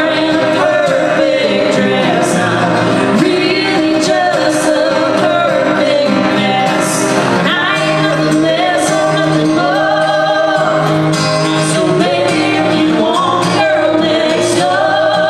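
Live country song: a woman singing over two strummed acoustic guitars.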